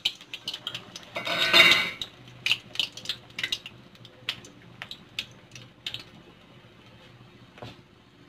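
Battered green chili fritter frying in hot oil in a metal kadai: a short loud sizzle about a second in, then scattered sharp pops and clicks that thin out over the next few seconds.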